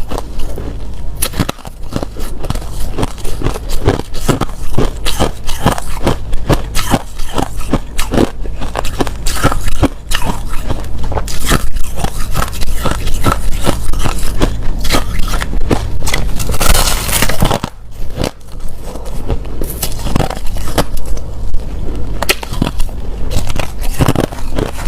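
Clear crushed ice being bitten and chewed close to the microphone: dense, irregular crunching and cracking, thicker and louder for about a second some 17 seconds in.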